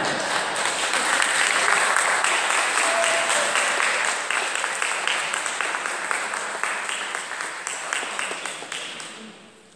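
Congregation applauding, many people clapping at once. It swells in the first couple of seconds, then slowly dies away near the end.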